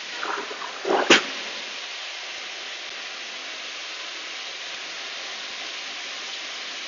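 Steady suction hiss of a truck-mounted extraction unit pulling flood water off a hard floor through a water claw extraction tool and its vacuum hose. A sharp knock comes about a second in.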